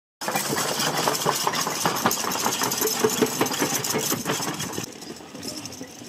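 Horse-drawn potato digger clattering and rattling as a pair of draft horses pull it, its rotating arms and iron works knocking in a fast, uneven run. The clatter drops off about five seconds in.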